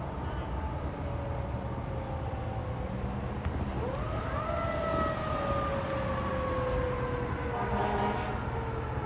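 Fire engine's siren sweeping sharply up in pitch about four seconds in, then slowly falling, over the low rumble of the truck's engine.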